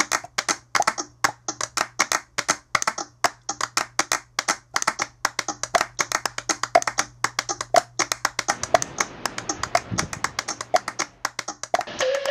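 Rhythmic percussive track of sharp taps, about four a second, with a few short high notes and a low steady hum underneath that fades out near the end.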